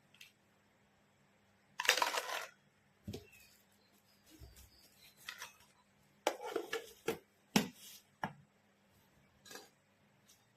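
Kitchenware being handled: irregular clinks and clatters, about eight short ones spread over several seconds, over a faint steady hum.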